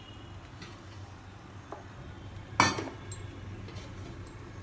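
Stainless steel cookware clinking as a steel bowl and pot lid are handled: one sharp ringing clink about halfway through, with a few lighter taps before and after.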